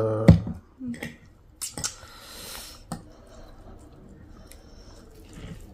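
Close-miked eating of spicy instant noodles: wet chewing and slurping, with scattered sharp smacks and clicks of lips and cutlery.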